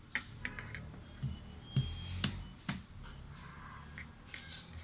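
A utensil clicking and tapping irregularly against a bowl while stirring a baking-soda-and-water slime mixture, a few taps ringing briefly.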